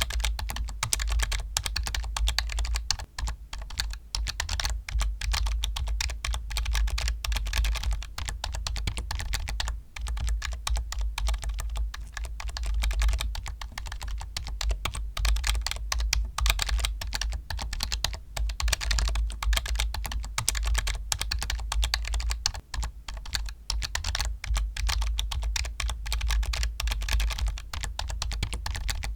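Continuous fast typing on a computer keyboard: a dense run of key clicks with only brief pauses.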